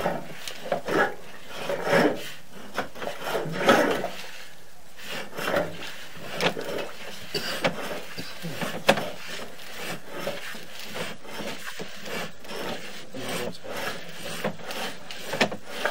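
Sewer inspection camera on its push cable being fed along a cast iron drain line: irregular rubbing and scraping with scattered sharp knocks as the cable and camera head slide forward.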